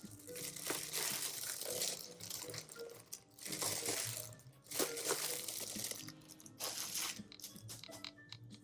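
Packaging being unwrapped, crinkling and crunching in several long stretches with short pauses between them, over soft background music.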